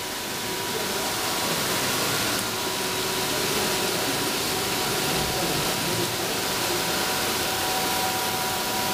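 Beef gut serosa ribbon-processing machine running steadily: a continuous hiss with a few faint steady hums, a little brighter from about two seconds in.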